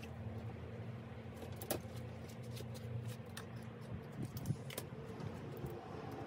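A few sharp metal clicks and taps as a bicycle brake arm is handled and its bolt turned with an Allen key: one about a second and a half in, several between four and five seconds in. Under them runs a steady low hum.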